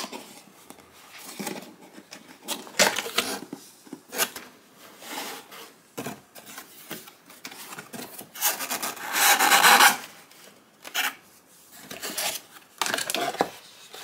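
Cardboard box being opened by hand: a tab pulled free, the lid lifted and the flaps scraping and rubbing against each other in irregular bursts. The longest, loudest scrape comes about two-thirds of the way through.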